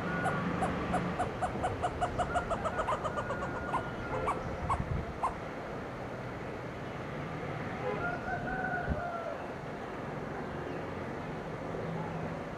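Grey hornbill calling: a run of short repeated notes that speeds up over about three seconds, then a few slower notes, and a longer drawn-out call about eight seconds in.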